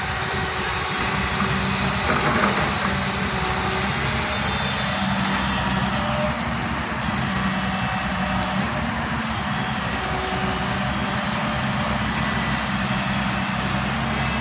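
A vehicle engine running steadily, a low even hum under a constant rush of noise.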